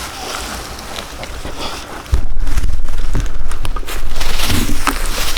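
Rustling and crunching right against the microphone, with bumps of handling: about two seconds in it jumps suddenly from faint to loud, like someone moving through dry leaves or pine straw while holding the camera.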